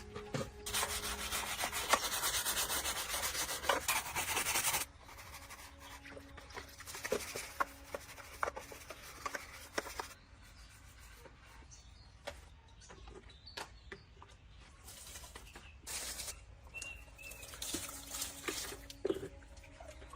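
Abrasive rubbing on a metal or plastic part for about the first five seconds. Then come quieter, scattered clicks, taps and short scrapes of parts being handled.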